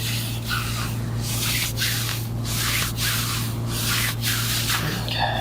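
Repeated rubbing or swishing strokes, about one to two a second, over a steady low hum.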